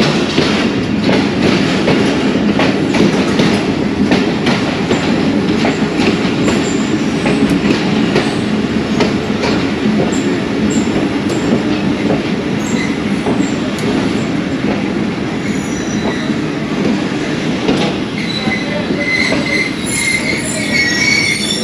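Passenger train coaches rolling slowly into a station, with a steady rumble and many short clicks of the wheels over rail joints. Near the end, short high-pitched wheel squeals sound as the train slows to stop.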